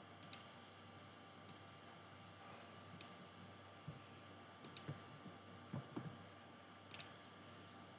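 Computer mouse buttons clicking: scattered sharp clicks, several in quick pairs, with a few soft low knocks around the middle, over faint room tone.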